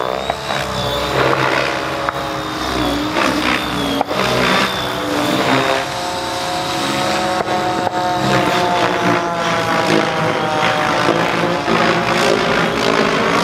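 Align T-Rex 700 DFC electric RC helicopter in aerobatic flight: rotor noise with a steady high whine, its pitch rising and falling as it manoeuvres.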